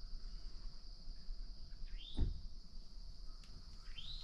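Outdoor morning ambience: a steady high-pitched insect drone, with a bird repeating a short rising whistled call about every two seconds. A low thump comes about two seconds in.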